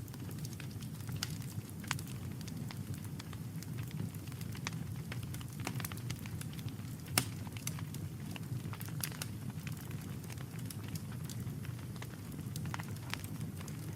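Wood campfire crackling with scattered sharp pops over a steady low rumble, with one louder pop about seven seconds in.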